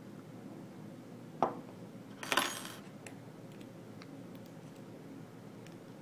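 Metal clicks from a pick tool working the rotating discs of a Sargent & Greenleaf high-security padlock: one sharp click about a second and a half in, then a short metallic rattle, and a few faint ticks after.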